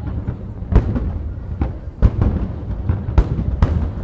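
Aerial firework shells bursting in a display: four loud booms, the first just under a second in and the last two close together near the end, with smaller pops and a steady low rumble between them.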